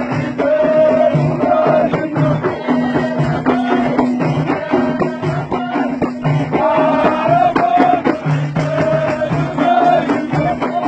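Ahidous, Amazigh folk music: a group chanting sung phrases over steady beats of hand-held frame drums (allun) struck by a line of men.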